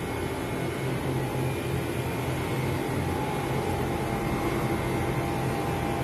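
Steady hum of refrigerated display cases, their fans and compressors running, with a low drone and a faint higher steady tone.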